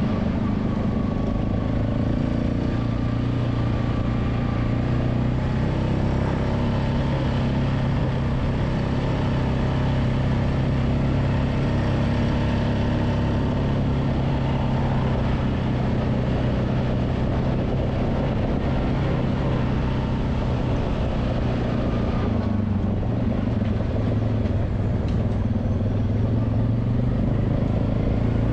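ATV engine running steadily with an even hum while riding along a trail.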